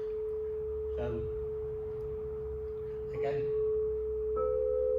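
Tuned copper sound tube, the meditation-bell tube, ringing on with one long, steady, pure tone after being struck. About four and a half seconds in, another tuned tube is struck, and a second steady tone a little higher in pitch rings alongside the first.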